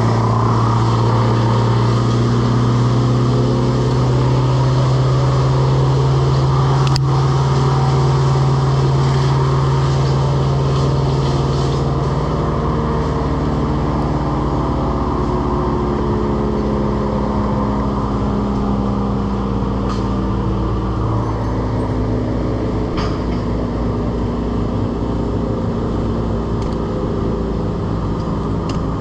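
An engine running steadily at an even speed, its tone shifting slightly about twelve seconds in.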